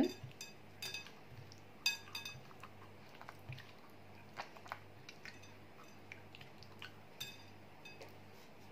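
Hands kneading a wet spice marinade into whole fish in a glass bowl: faint squelching with scattered light clicks. A few of them ring briefly, like taps against the glass.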